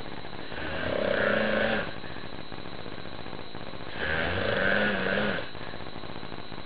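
A man snoring in his sleep: two long snores about three seconds apart, each lasting over a second.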